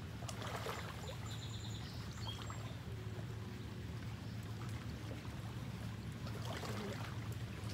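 Boat motor running with a steady low hum, with water trickling and splashing against the hull.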